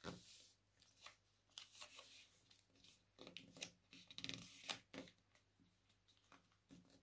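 Faint rustling and crinkling of a paper airplane's sheet being folded and creased by hand, a handful of short rustles, most of them around three to five seconds in.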